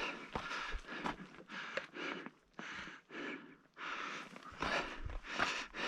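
A climber's heavy breathing close to the microphone: about ten quick, airy breaths, with a few small clicks of boots on loose plate rock.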